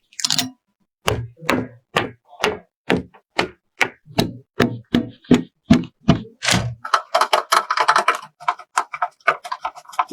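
A run of short, sharp knocks and clicks, about two or three a second, turning into a busier cluster of clicks and rattles about seven seconds in: hard parts being handled and set down.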